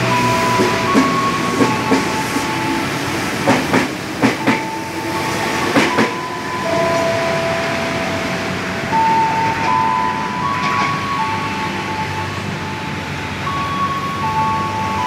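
Electric commuter train pulling out and moving away, its wheels clacking over rail joints in a quick run of clacks during the first six seconds over a steady rumble. A string of held tones stepping between pitches runs through it.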